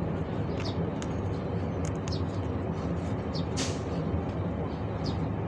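Steady low rumble of a vehicle engine running, with a few light metallic clicks from hand work on a truck's steering tie rod, the sharpest about three and a half seconds in.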